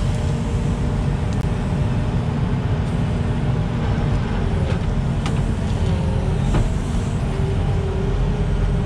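Volvo EWR 150E wheeled excavator's diesel engine running steadily at work, with a few faint clicks.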